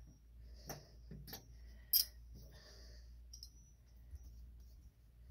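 Scattered metallic clicks and clinks of a 1/2 inch wrench working loose the adjustment plug on a Corvair's mechanical fuel pump, the sharpest click about two seconds in.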